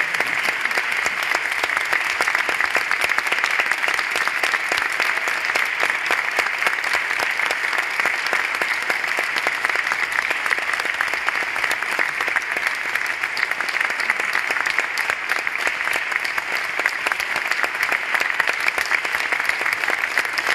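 Audience applauding: dense, steady clapping from many hands that keeps up without a break.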